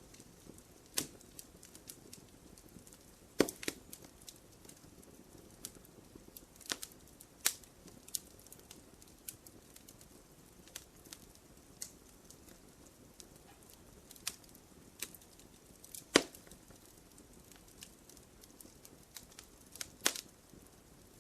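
Wood fire crackling in a fireplace: irregular sharp pops and snaps over a soft low burning hiss, with the loudest pops about three and a half seconds in, near the middle and near the end.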